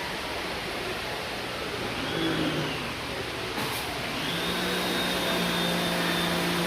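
A motor starting up about four seconds in and then running steadily, with a high whine over a low hum and a constant rushing background. About two seconds in, a brief whine rises and falls.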